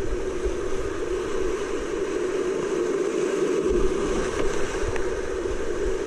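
Whitewater rapids rushing steadily around a kayak running a rocky creek at high water.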